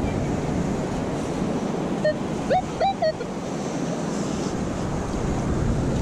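Ocean surf washing on the beach with wind on the microphone, a steady rush of noise. About two and a half seconds in, two or three short rising tones sound briefly.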